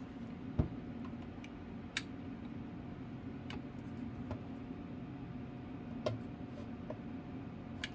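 Scattered light clicks and taps of a hand tool against the metal case of a Radioddity QT60 transceiver as the warranty seal stickers over the case screws are broken, the sharpest click about half a second in. A faint steady hum runs underneath.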